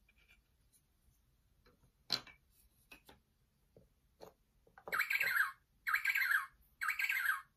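Wooden puzzle pieces clicking against the board, then the Melissa & Doug sound puzzle's speaker playing a recorded penguin call: three squawking calls about a second apart, set off when the penguin piece is lifted off its sensor.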